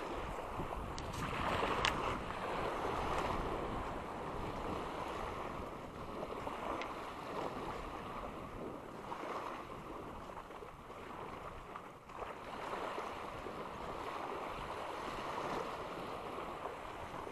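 Small waves lapping and washing up onto a sand beach, with wind rumbling on the microphone.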